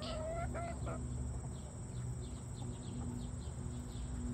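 Outdoor insect chorus of crickets, a steady high-pitched drone, with faint short chirps repeating over it and a low steady hum underneath.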